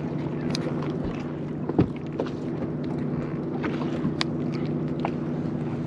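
A boat motor running steadily at an even pitch, with a few light clicks and knocks scattered through it.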